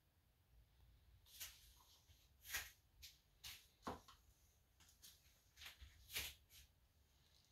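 Faint, scattered light taps and clicks, about a dozen over five seconds, from plastic paint cups and wooden stir sticks being handled.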